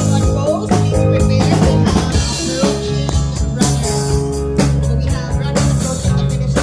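A band playing a blues-rock groove: a guitar carrying a melodic line over sustained bass notes, with a drum kit keeping a steady beat.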